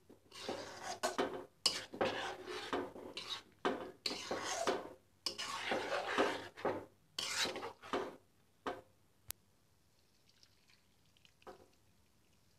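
A spatula stirring and scraping thick rice-milk pudding in a steel pot: a run of wet, rasping strokes for about eight seconds, then near silence.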